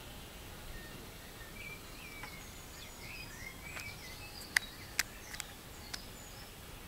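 Outdoor background hiss with scattered faint, short high chirping calls, and four sharp clicks between about four and a half and six seconds in, the loudest sounds here.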